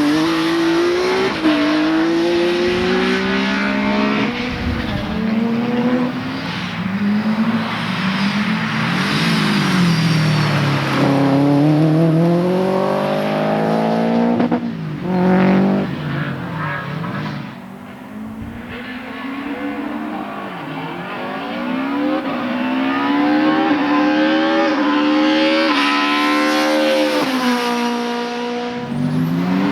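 Race car engines revving hard, their pitch climbing and dropping again and again as the cars shift gear and lift off through a slalom course.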